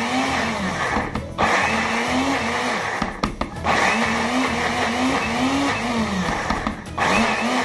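Countertop blender grinding soaked split mung beans (pojo) in short pulses. The motor stops briefly about a second and a half in, again around three seconds in, and near the end. Each run wavers in pitch as the load changes, and the pulsing keeps the paste coarse rather than smooth.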